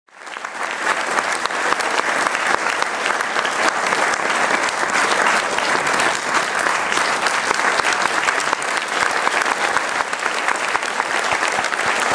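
Audience applauding steadily, fading in over the first second.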